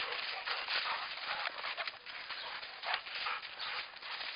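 Dogs running and playing in snow: an irregular patter of paws scuffing and crunching through the snow.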